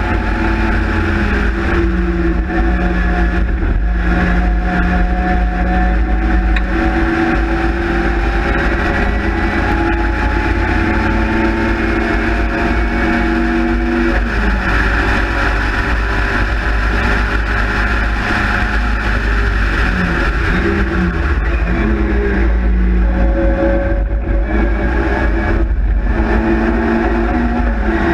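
Spridget (Austin-Healey Sprite/MG Midget) race car's four-cylinder engine running hard, heard from on board over steady wind rush in the open cockpit. The revs hold steady for long stretches, fall and rise again about 14 seconds in, and dip sharply twice around 20 seconds in, as for downshifts, before climbing again.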